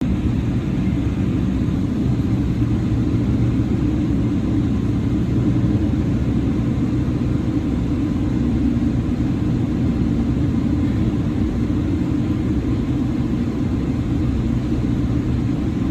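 Steady low rumble of an airliner's cabin noise on the ground before takeoff, with engine and air-conditioning drone heard from inside the cabin.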